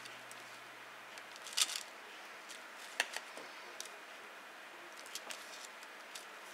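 Faint handling sounds of a stencil and cardstock being positioned on a table: a brief paper rustle about one and a half seconds in, a sharp tap about halfway through, and a few light ticks near the end.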